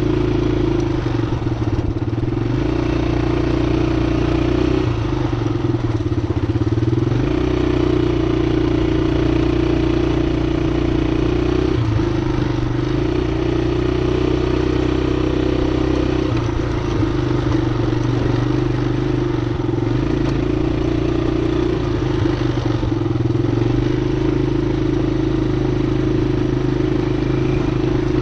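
ATV engine running steadily as the quad is ridden slowly along a dirt track, its note dipping and rising a little now and then.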